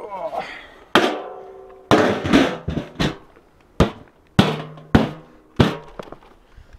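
Galvanized metal feed tub being knocked and handled: about eight sharp clanks, each leaving a brief metallic ring.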